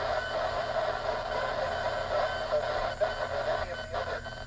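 Loud steady interfering tone mixed with static from an FM transceiver's speaker tuned to a 10-metre repeater channel. It covers the channel with no voice under it: a signal the operator takes for another repeater or someone jamming.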